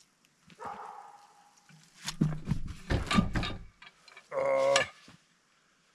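A large western hemlock log being rolled onto a sawmill's steel bed rails: a run of knocks and thumps about two seconds in as it turns and lands, then a man's short grunt of effort.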